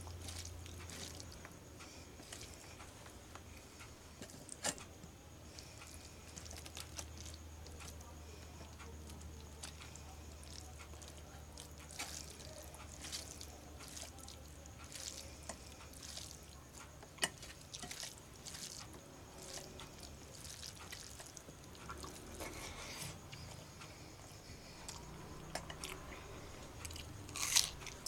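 Eating rice and curry by hand from a steel plate: soft squishing of fingers mixing the food, chewing and lip smacks, with scattered small clicks and a few sharper ones, over a low steady hum.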